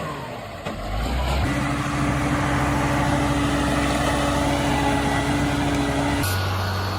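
Heavy truck engine running steadily. The engine sound changes abruptly twice, about a second and a half in and again near the end.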